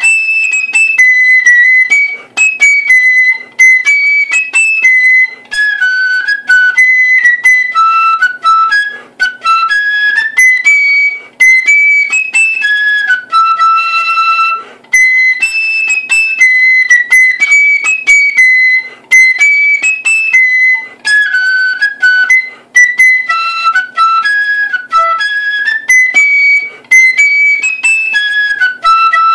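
A solo black wooden marching-band flute plays a jig melody in a high register, phrase by phrase, with brief breaks for breath every few seconds.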